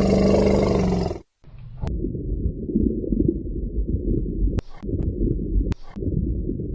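An animal's loud, pitched call lasting about a second, then a low, rough, irregular animal noise broken by two short gaps.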